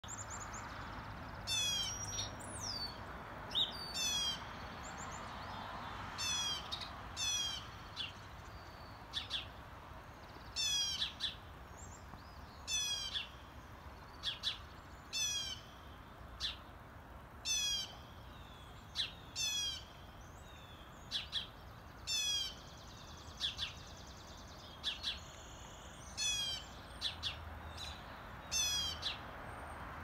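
Birds calling in the early morning: a short, high call repeated every second or two, with single sharp high notes in between.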